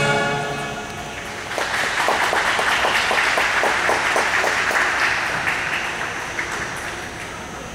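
Audience applauding: a patter of many hands clapping starts about a second and a half in and thins out toward the end. At the very start the last held note of the program music fades away.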